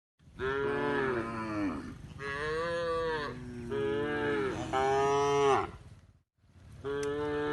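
Cows mooing: a run of long, loud moos one after another, then another moo after a short break near the end.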